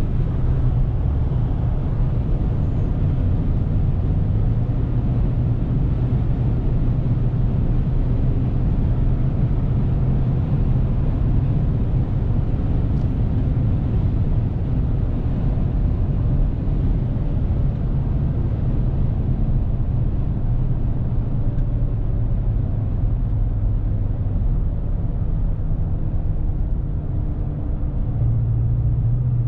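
Dodge Ram 1500's 5.7 HEMI V8 heard from inside the cab at autobahn speed: a steady low engine drone mixed with tyre and wind noise. The drone grows a little louder near the end.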